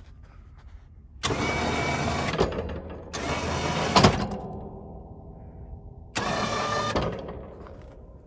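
Electric winch of a UTV plow lift running in three short bursts, each starting and stopping abruptly, as the poly plow blade is worked by the dash switch. A quieter low hum runs between the second and third bursts.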